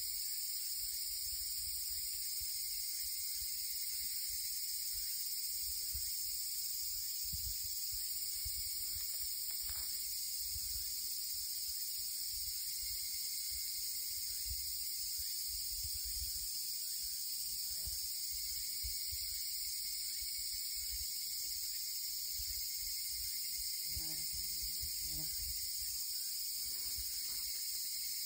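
A steady, high-pitched chorus of insects, unbroken throughout, with irregular low rumbles underneath.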